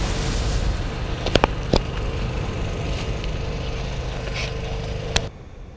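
Steady low rumbling noise with a faint hum, broken by a few sharp cracks, three of them close together in the second second; it all cuts off abruptly with a last crack about five seconds in.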